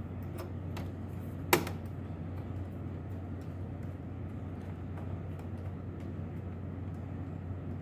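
Light clicks of a screwdriver and the module's metal case being handled while the second cover screw is fastened, with one sharp, loud click about one and a half seconds in, over a steady low hum.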